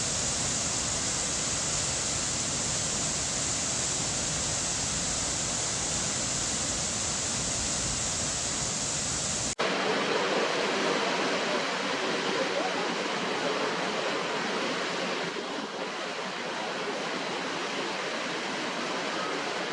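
Waterfall rushing steadily. About ten seconds in it cuts abruptly to a second waterfall, with less deep rumble and a brighter hiss.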